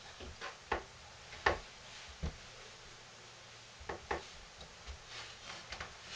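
Light knocks and clicks of a wooden soap-cutting box being handled as a soap log is shifted and set in place for cutting: a few sharp knocks in the first couple of seconds, a pair about four seconds in, and softer taps near the end.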